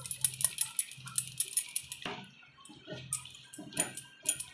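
Milk powder tipped from a crinkling plastic packet into a pan of simmering milk and rice, then a steel ladle stirring and splashing through the liquid and knocking against the aluminium kadai.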